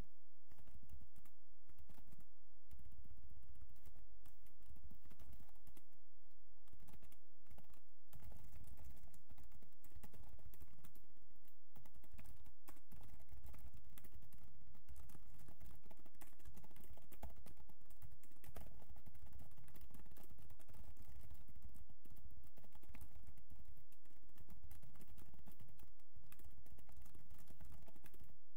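Computer keyboard being typed on: quick irregular runs of key clicks with a few short pauses.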